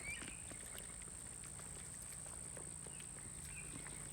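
Faint outdoor sounds of goats moving about and feeding: soft scattered clicks and shuffles, with a few short rising chirps.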